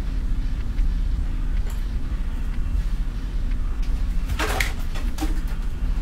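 Parts of a Dyson CR01 washing machine being handled during dismantling: a steady low rumble, with a short rattling clatter of metal and plastic about four and a half seconds in and a smaller one just after.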